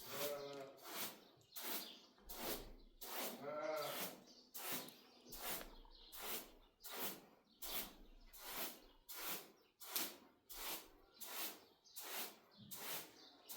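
Two bleats from small livestock, one about half a second in and one about three and a half seconds in, over a regular swishing rhythm of about two strokes a second.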